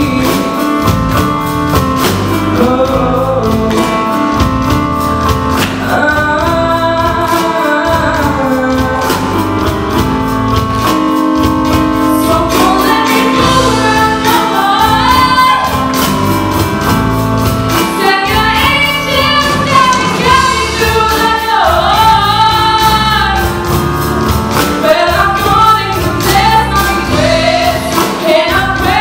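A woman sings lead in full voice over a live band: electric bass guitar, drum kit keeping a steady beat, and keyboard.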